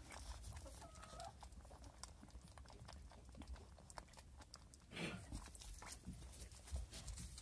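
Faint domestic animal sounds: a short high call about a second in and another brief call about five seconds in, over scattered light clicks and taps.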